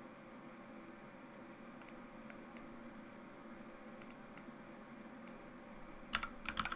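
Computer mouse and keyboard at work: a few faint scattered clicks, then a quick run of keystrokes near the end as a new value is typed in. A faint steady hum runs underneath.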